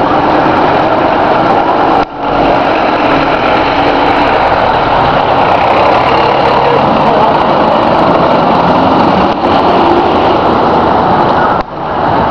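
Fire truck's diesel engine running loud and close as the truck pulls away, a dense steady engine noise that drops sharply for a moment about two seconds in and again near the end.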